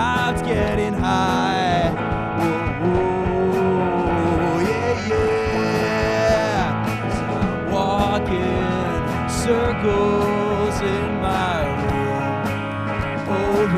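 Live rock band playing: a sung lead vocal over electric guitar, bass and drums, with trombone.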